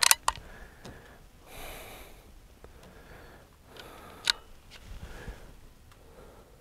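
Clicks of a Crosman 2240XL CO2 pellet pistol being handled and reloaded between shots: a sharp click at the start and another about four seconds in as the single-shot bolt is worked. Soft breaths and sniffs come in between.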